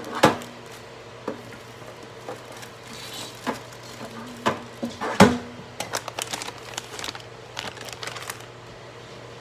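Scattered knocks, clatter and crinkling of packaging as food packets and kitchen things are handled and put away, the two loudest knocks right at the start and about five seconds in, over the steady hum of a running microwave oven.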